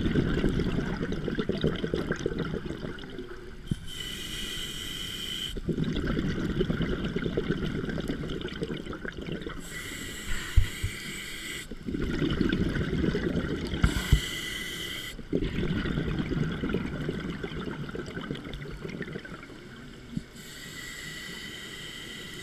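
Scuba diver breathing through a regulator underwater: short hissing inhales through the demand valve alternate with longer bubbling rushes of exhaled air. There are about four breaths.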